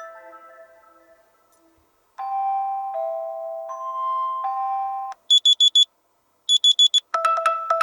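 Nokia T20 tablet playing its alarm tones in turn: a chime fading away, then a short melody of held electronic notes, then two bursts of rapid high-pitched beeps, and near the end a quick repeating two-note alarm pattern begins.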